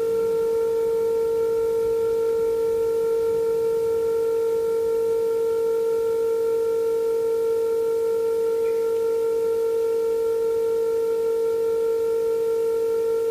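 A steady mid-pitched test tone with faint overtones, coming from the 1957 Ekco U245 valve radio's loudspeaker as an alignment signal is fed through its IF stages. The tone holds constant in pitch and level while the second IF adjustment is turned, making no difference.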